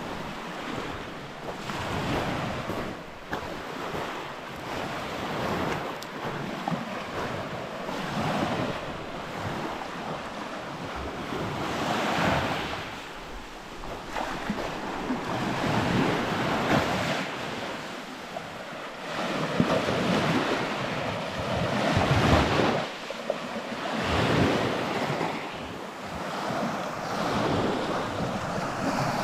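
Small sea waves breaking and washing up a fine shingle beach, the wash swelling and ebbing every few seconds.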